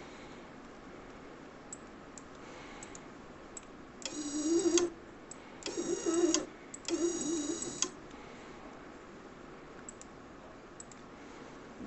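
Small motor of a PLC training unit's conveyor running in three short bursts of under a second each, about four seconds in, with a whine over a wavering low hum. The conveyor is being driven by the PLC program from the PC.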